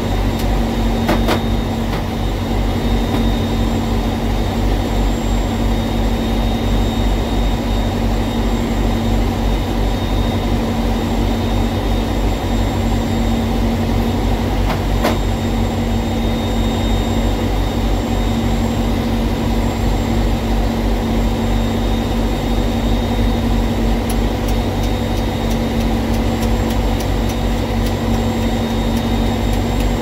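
Diesel engine idling steadily, a loud constant drone with a fast low pulse; a few light clicks, with a quick run of them near the end.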